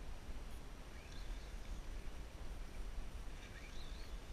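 Low, uneven rumble of wind on the camera microphone, with faint short high chirps about a second in and again near the end.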